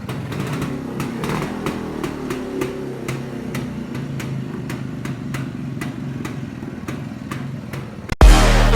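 1980 Yezdi D250 Classic's single-cylinder two-stroke engine running, with regular sharp ticks about three a second. Music cuts in suddenly near the end.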